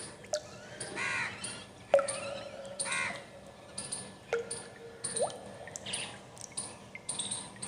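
Birds calling: two longer calls about a second and three seconds in, with many short sharp chirps and clicks scattered between them.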